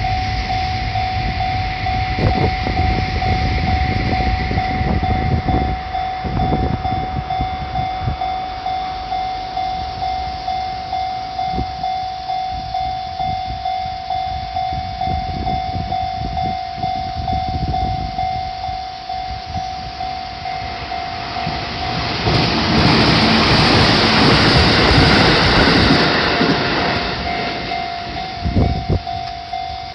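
Japanese railway level-crossing warning bell ringing in a steady repeating pattern, about two strokes a second, while trains run over the crossing with low clattering of wheels on the rails. A louder rush of passing-train noise swells from about 22 seconds in and fades a few seconds later, and the bell stops suddenly at the very end.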